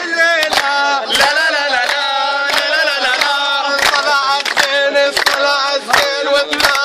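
A group of voices singing a chant-like song, with hand-clapping keeping time at about two claps a second.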